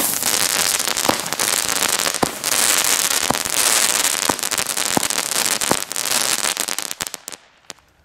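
Weco Feuersturm consumer fireworks battery firing: a dense crackling with a sharp report about once a second, starting suddenly and dying away about seven seconds in.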